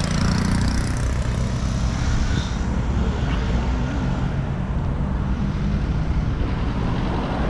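Steady low rumble of a sedan driving on the road.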